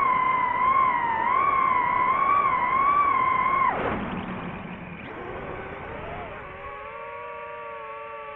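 FPV quadcopter's electric motors whining, the pitch wavering with the throttle. About four seconds in the pitch falls sharply as the throttle is cut, then settles into a quieter, lower whine of several tones.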